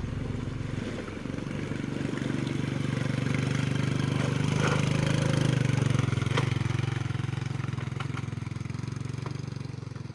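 An engine running steadily at idle with a fast, even pulsing. It swells a little in the middle, then fades toward the end.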